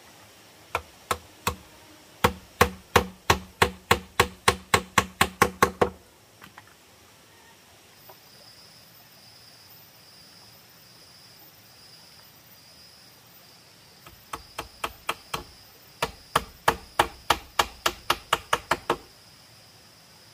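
Hammer blows on bamboo, nailing strips onto a gate post: a run of quick strikes at about three a second, a pause of several seconds, then a second run.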